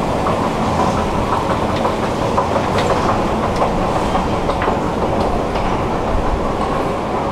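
Subway station escalator running: a steady mechanical noise with a faint hum and many small irregular clicks, picked up close while riding it to the top.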